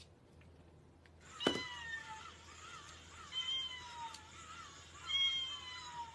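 Cat meowing three times, about a second and a half apart, each meow sliding down in pitch. A short click comes just before the first meow, and a wavering warble follows it.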